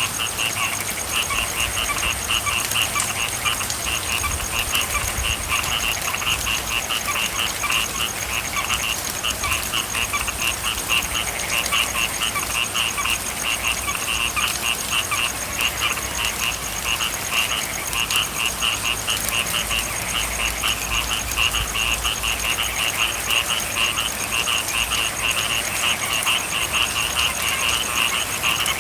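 A chorus of frogs calling in fast, dense, repeated pulses, over a steady hiss of rain.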